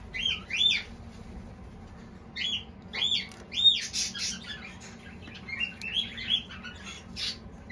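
A bird chirping: several groups of quick high notes that rise and fall, a second or two apart.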